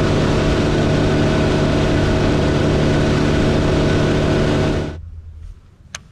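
Bass boat's outboard motor running steadily at speed, with wind and water rushing past the boat; the sound cuts off abruptly about five seconds in. A single sharp click comes near the end.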